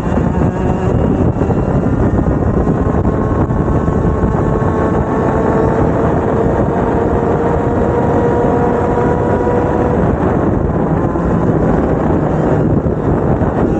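Two-stroke racing kart engine at full throttle. Its note climbs slowly for several seconds, then drops off about ten seconds in.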